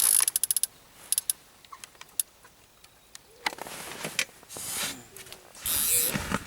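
Fishing reel clicking rapidly for under a second while a hooked tench is played, then scattered single clicks and a few short swishes, the loudest near the end.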